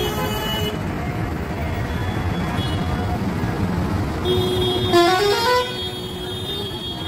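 Steady rumble of street traffic, with a vehicle horn honking for about a second, four to five seconds in, its pitch stepping up partway through.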